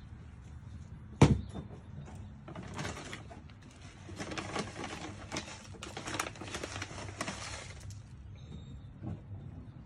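A single thump about a second in, then a few seconds of crinkly rustling and small clicks as a plastic bag of granular plant food is handled and scooped from, dying away near the end.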